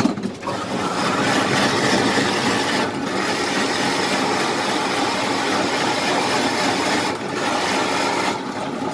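Electric block-ice shaving machine shaving a block of ice into a bowl: a steady, loud scraping noise over the running motor. It starts just after the beginning, dips briefly twice, and stops shortly before the end.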